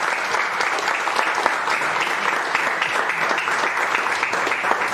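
A roomful of about a dozen or more people applauding, with dense, steady clapping.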